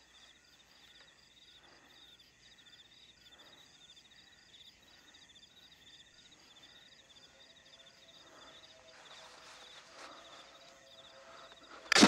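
Night-time insect chorus of crickets chirping in fast, steady pulsing trains, faint throughout. Right at the end comes one sharp, loud knock or click, by far the loudest sound.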